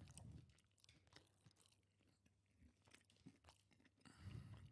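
Faint close-miked chewing of crunchy fried chicken: a string of small crunches and mouth clicks, with a muffled low sound at the start and again near the end.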